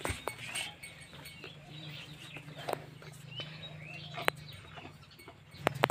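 Faint farmyard animal and bird calls with scattered clicks and knocks, over a steady low hum that gets louder near the end.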